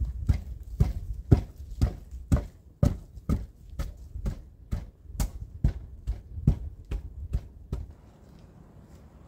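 Footsteps: a steady walk of heavy thuds at about two steps a second, stopping near the end.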